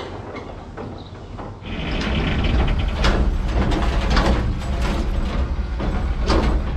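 Farm machinery unloading chopped hay: a steady mechanical clatter and rattle of chains and gears. About one and a half seconds in it grows much louder as a deep low drone joins, with a few louder surges after.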